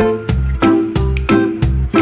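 Background music with a steady beat of about three strikes a second over a bass line.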